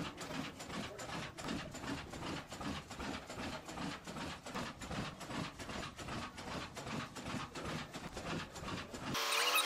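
Very large single-cylinder stationary oil engine, about 20,000 cubic inches, running slowly at about 160 RPM with open crank and valve gear: a steady rhythmic mechanical clatter of several clicks and knocks a second. It cuts off near the end.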